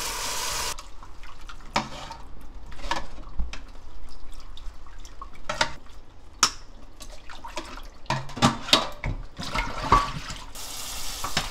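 Cold tap water running onto blanched oyster mushrooms in a pot, cutting off about a second in. Then water splashing and dripping as the mushrooms drain in a mesh strainer and are pressed with a steel bowl to squeeze the water out, with sharp knocks of metal on metal. Water rushes again near the end.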